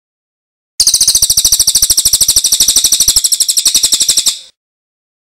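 A bird's loud, high-pitched rattling trill, about a dozen rapid notes a second, starting suddenly about a second in and cutting off abruptly some three and a half seconds later.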